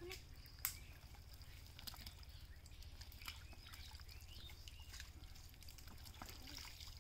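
Faint trickling and small splashes of shallow muddy water, with scattered little clicks, as hands grope through wet mud and pick up small fish.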